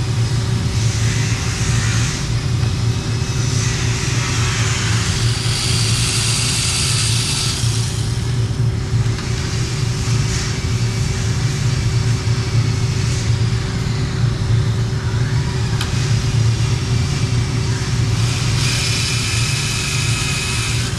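Steady low mechanical hum, with stretches of higher-pitched whirring about six seconds in and again near the end.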